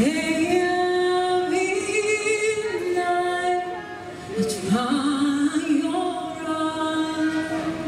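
A woman singing into a handheld microphone, holding long sustained notes. There is a short break about four seconds in, then her voice slides up into the next phrase.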